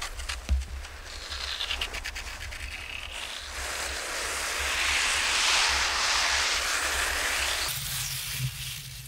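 Cross-country skis sliding and scraping over firm, frozen-crusted spring snow, a steady hiss that swells midway, with wind rumbling on the microphone and a single knock about half a second in.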